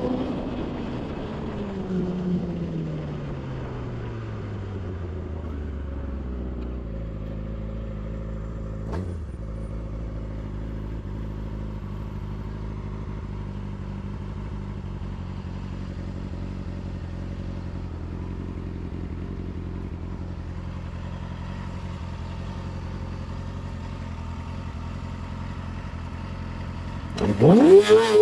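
Yamaha YZF-R6 inline-four engine winding down as the bike slows, then idling steadily for about twenty seconds, with one short click about nine seconds in. Near the end the throttle is blipped into a couple of sharp revs.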